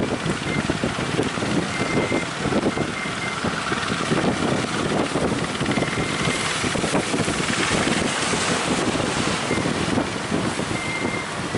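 Strong wind buffeting the microphone over the rush of surf, the sea noise swelling for a few seconds in the middle.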